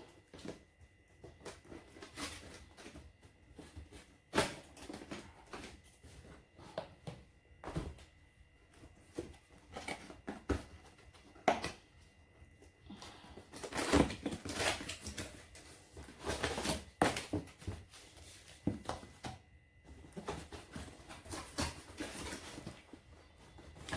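Hands unpacking a boxed coffee machine: scattered knocks and taps with stretches of rustling packaging, busiest in the second half.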